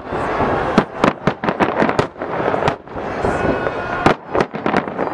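Aerial fireworks shells bursting in quick, irregular succession: sharp bangs, several a second at times, over a continuous crackle.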